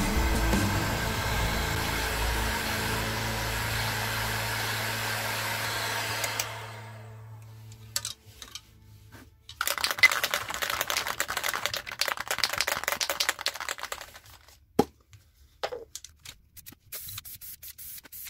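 Intertool heat gun blowing steadily, then switched off and fading out about six seconds in. Later an aerosol spray paint can is shaken hard for several seconds, its mixing ball rattling fast, followed by a single sharp click.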